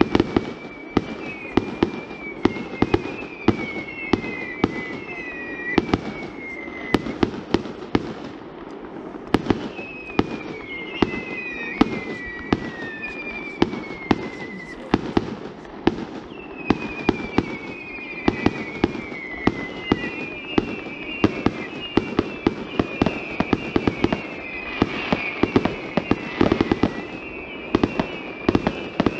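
Fireworks display: a dense, continuous run of sharp bangs and reports, mixed with repeated high whistles that each fall in pitch over about a second. The whistles and bangs grow thickest near the end.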